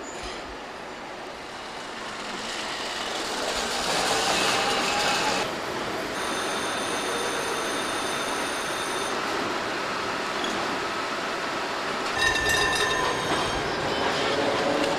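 Four-wheeled electric street trams running along the track. The running noise of wheels on rails swells a few seconds in. High, steady squealing tones come in around the middle and again about twelve seconds in, typical of wheel flanges squealing on street rails.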